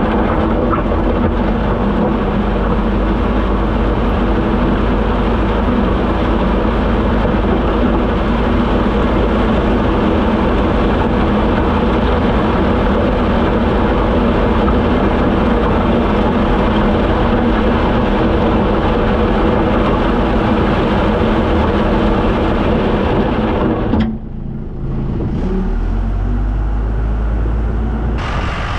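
Heavy vehicle engine running steadily under load. Near the end the sound changes suddenly to a quieter, deeper engine rumble.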